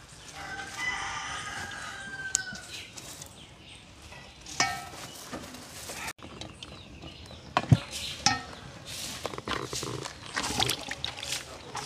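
Chickens clucking and a rooster crowing, with pitched calls that come and go and one longer call early on that falls at its end. A few sharp knocks sound in between.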